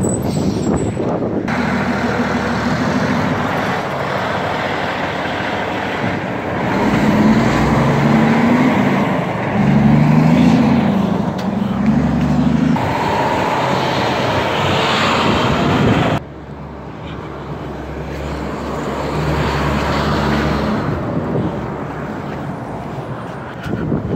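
Heavy diesel tractor-trailer pulling away from a stop, its engine note rising and dropping three times as it works up through the gears, over street traffic noise. The loud engine sound cuts off suddenly about two-thirds of the way through, leaving quieter traffic.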